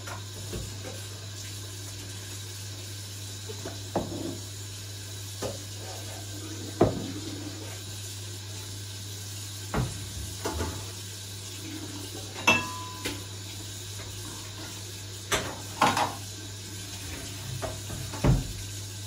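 Dishes and utensils clinking and knocking as they are handled, about a dozen separate clinks spread out with gaps between them. One clink about twelve seconds in rings briefly. A steady low hum sits underneath.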